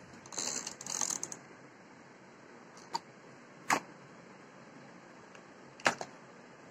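Handling noise from a cardboard box and its wiring: a short rustle of cardboard near the start, then three sharp clicks or taps spread through the rest.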